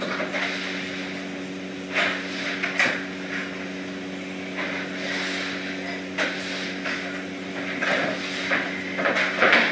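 A broom sweeping a hard floor, its bristles swishing in short irregular strokes with a few light knocks, over a steady low hum.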